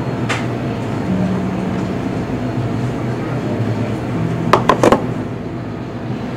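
Steady low machine hum, with three sharp clicks in quick succession about four and a half seconds in.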